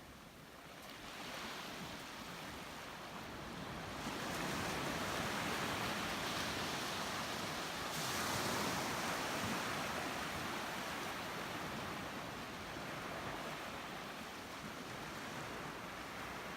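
Ocean surf: waves breaking and washing ashore as a steady rush that swells louder about four seconds in, peaks around eight seconds, then eases off.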